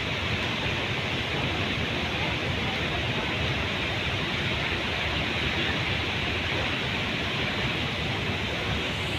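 Floodwater pouring out through the open spillway gates of a dam, a steady, unbroken rush of water.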